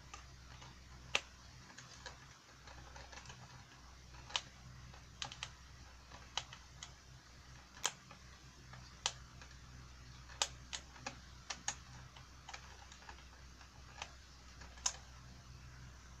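Sharp plastic clicks and taps at irregular intervals from a plastic toy boat and its packaging being handled and unpacked, over a low steady hum.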